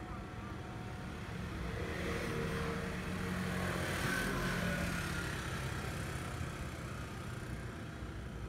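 A motor vehicle passing by, its noise swelling to a peak about four seconds in and then fading, over steady outdoor background noise.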